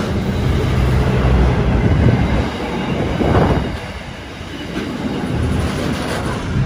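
Container freight train's wagons rolling past on the rails, steady wheel and running noise. The last wagons go by near the end.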